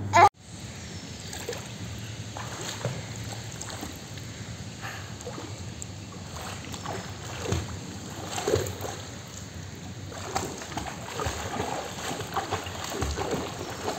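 A brief loud sound right at the start cuts off abruptly. Then pool water splashes and sloshes as a child paddles and kicks along in inflatable arm bands, with irregular small splashes over a steady wash of water.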